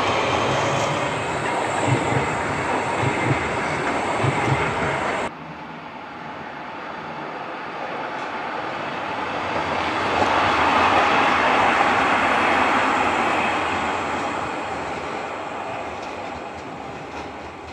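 Trams rolling over a worn tram track of concrete BKV panels: a tram passes close with a steady rumble and several dull thumps as the wheels cross the panels. After a sudden cut, a Škoda 15T low-floor tram approaches, is loudest about two-thirds of the way through, and fades as it moves away.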